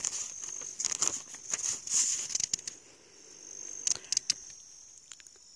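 Rustling and crackling of footsteps through grass, over a steady high trill of crickets that breaks off briefly about three seconds in.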